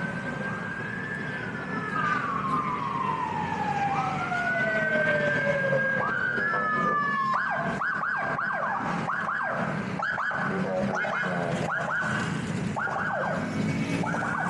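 Emergency vehicle siren: a slow wail rising and falling in pitch, switching about halfway through to a fast yelp of roughly two sweeps a second, over street traffic noise.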